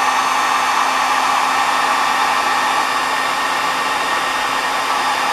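Electric hot-air blower running steadily, a motor hum under the rush of air, shrinking heat-shrink tubing over a twisted wire splice.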